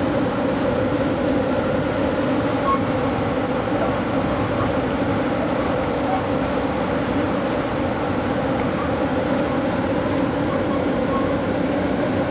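Passenger train running at speed, heard from inside the car: a steady rumble of wheels on the rails with a constant drone.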